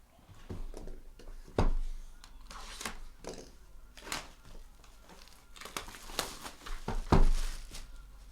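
Plastic wrapping being crinkled and torn as a trading card box is opened by hand, with two sharp knocks, about one and a half seconds in and near the end, the loudest sounds.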